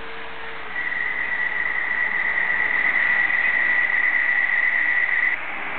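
Roco model E10 electric locomotive running along model railway track, with a steady high whine over its running noise. The whine starts about a second in and cuts off sharply near the end.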